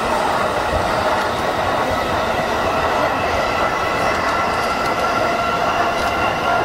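JR East E233-1000 series electric commuter train running along the line, heard from inside the leading car: a steady rumble of wheels on rail with several steady high tones above it.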